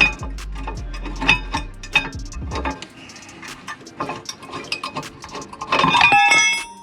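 Metal tools and brake parts clinking and clicking during a rear brake teardown: repeated sharp clicks about every half second at first, then sparser clinks, and a louder metallic clatter with ringing near the end.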